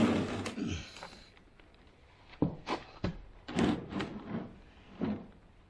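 Handling noises at a wooden sand-molding flask: a rough scrape that dies away about a second in, then a run of about seven short knocks and scrapes over the next three seconds.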